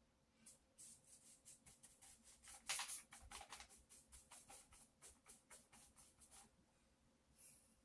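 Faint strokes of a paintbrush on paper: a quick run of short swishes and dabs, busiest about three seconds in, easing off near the end.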